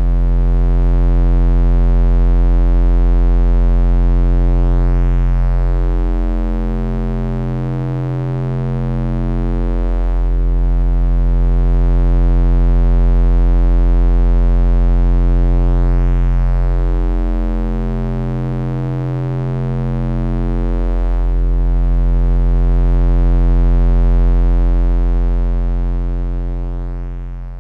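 Synthesized deep bass drone: a steady low hum with many overtones above it, swelling and easing slowly about every eleven seconds, fading out near the end.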